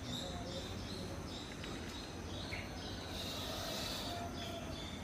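Steady low background hum with small birds chirping over it, short high chirps repeating every fraction of a second.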